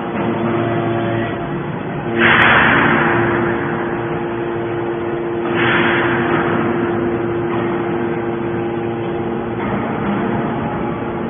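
Hydraulic metal shavings baler running: a steady motor-and-pump hum, with two sudden surges of rushing noise, about two seconds and five and a half seconds in, that each fade over a second or so.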